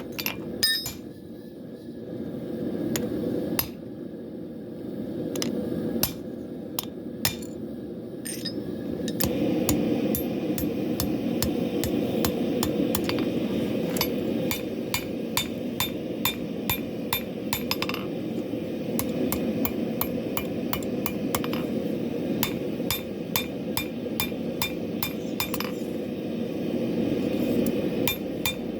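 Hand hammer striking W2 steel on an anvil with bright ringing clinks: a few scattered blows at first, then from about nine seconds in a quick, steady run of blows, about two or three a second. A steady low rushing noise sits beneath the blows and gets louder where the fast hammering starts.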